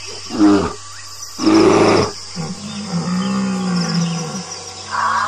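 A run of animal calls over crickets chirping steadily: a short call falling in pitch, then a loud rough roar-like call, then a long low call that rises and falls in pitch, and another call starting near the end.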